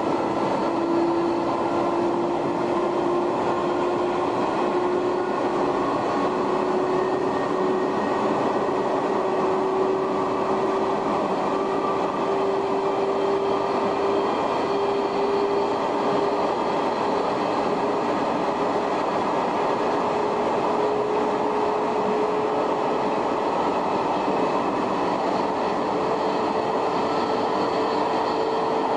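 Shin-Keisei 500-series electric train running, heard from inside the front car: the whine of its nose-suspended traction motors and gearing climbs slowly in pitch as the train gathers speed, over a steady rumble of wheels on rail.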